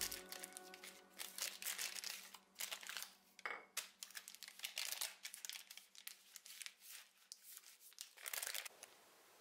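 Wax paper crinkling and rustling as gloved hands press and smooth it over a slab of nougat, in many irregular crinkles that stop about eight and a half seconds in.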